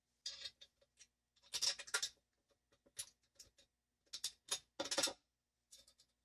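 Small metal clicks and rattles with short scraping and rustling sounds, in irregular bursts with gaps between them, as a small bolt and nut are handled and fitted where a steel square tube meets a metal shelf bracket.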